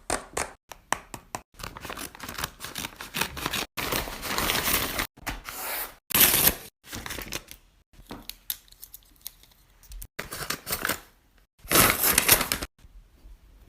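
Crinkling and tearing of crinkly material being handled, in many short noisy bursts with clicks: thick for the first few seconds, sparser in the middle, with a loud burst near the end.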